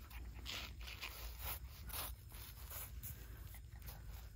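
Faint rustling and scuffing: a few soft, brief brushing sounds spread over about four seconds.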